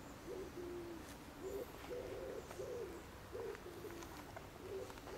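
A pigeon cooing over and over in short, low, repeated phrases, faint.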